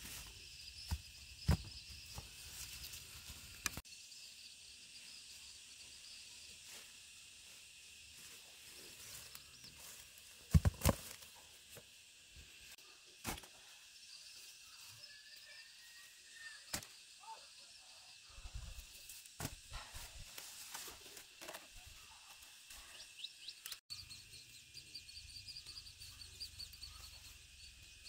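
Quiet outdoor ambience: a steady high-pitched hiss with faint chirping, broken by a few short, sharp knocks, the loudest about ten seconds in.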